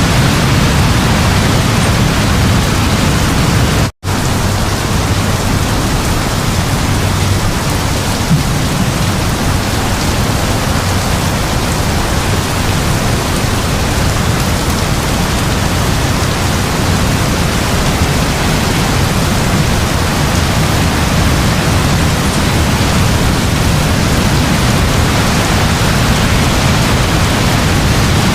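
Heavy rain falling steadily, a dense, even hiss with a deep low rumble beneath it. The sound cuts out completely for an instant about four seconds in, then resumes unchanged.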